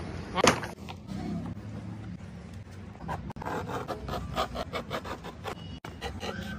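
Knife cutting through leather in a quick run of short scraping strokes, a few a second. A loud flapping rustle of a stiff leather sheet comes about half a second in.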